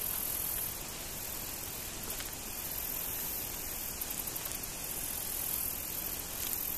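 Steady outdoor hiss with no distinct source, with a brief run of faint rapid ticking about four seconds in and again near the end.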